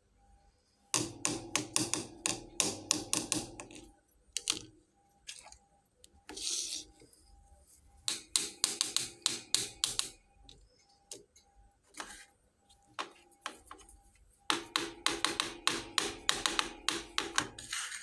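Small hard toy kitchen pieces being handled, tapping and clicking against each other in three quick rattling runs, with scattered single ticks between them.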